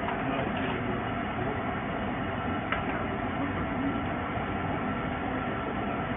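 Steady mechanical hum of running kitchen equipment, with one faint click about three seconds in.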